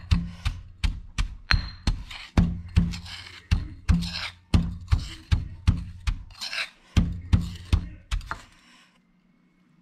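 Stone pestle pounding in a granite mortar, a steady run of dull knocks about two to three a second as salt, chili and sugar are crushed into a gritty paste. A metal spoon scrapes the paste around between strokes. The pounding stops about eight seconds in.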